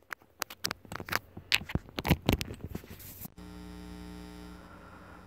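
Handling clicks and scrapes as a lavalier microphone's jack is plugged into the recording device. A little over three seconds in, the audio cuts abruptly to the plugged-in lavalier, which picks up a steady electrical hum.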